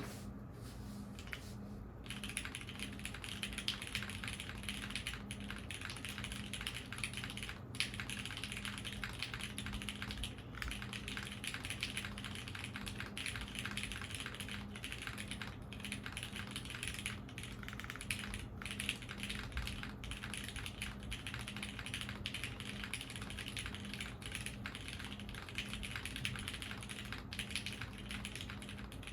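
Fukuro mechanical keyboard with lubed Cherry MX Hyperglide Brown tactile switches in a polycarbonate top-mount plate, no foam, and GMK keycaps, typed on continuously at a steady pace. The typing starts about two seconds in.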